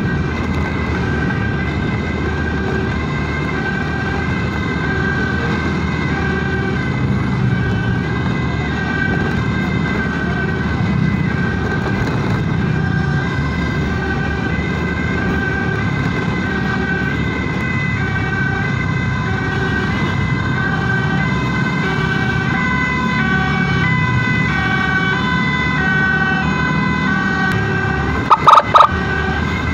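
Ambulance siren sounding continuously in an alternating two-tone pattern over the steady noise of engines and tyres in traffic. Near the end comes a quick cluster of short, very loud blasts.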